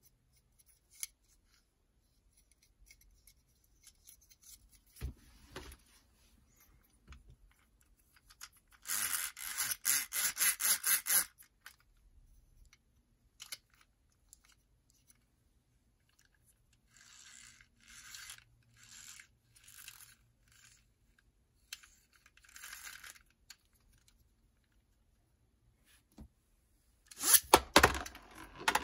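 A toy spinning top's plastic toothed rip cord ratcheting through its launcher in runs of rapid clicks, a long run about nine seconds in and several shorter ones later. Near the end the cord is ripped out and the top is launched, clattering as it lands and spins in a plastic basin.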